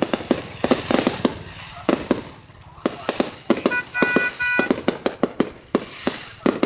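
Fireworks display going off, a rapid run of sharp bangs and crackling bursts, several a second, thinning briefly about two and a half seconds in. About four seconds in, three short beeps sound among the bangs.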